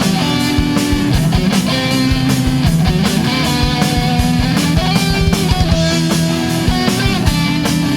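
Progressive rock recording: a full band with guitar playing sustained melodic lines over bass and drums, with cymbal and drum hits keeping a steady beat.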